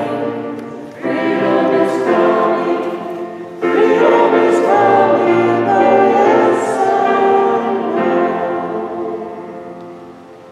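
Church choir singing a slow passage of long held chords, changing chord a few times and fading out near the end.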